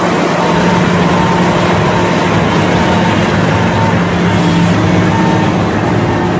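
Crawler crane's diesel engine running loud and steady as the machine drives on its tracks up onto a lowbed trailer, with a constant low drone under a dense mechanical noise.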